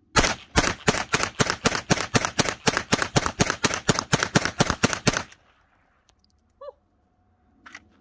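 Pioneer Arms PPS43C 9mm semi-automatic pistol fired rapidly, about two dozen shots at roughly five a second for five seconds, then stopping abruptly. A few quieter sharp clicks follow near the end.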